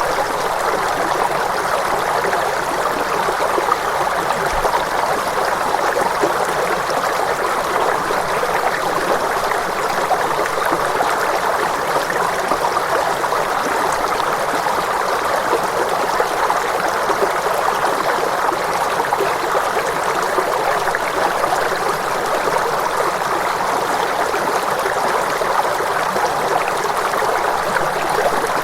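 Steady rushing of flowing water, an even, unbroken stream noise with no tones or music over it.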